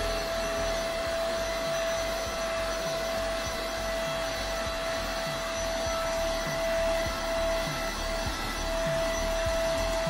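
absob AB-114 cordless handheld vacuum cleaner running: a steady motor whine over the rush of suction, with occasional light knocks as the nozzle is worked along a carpeted edge. The whine wavers on and off near the end.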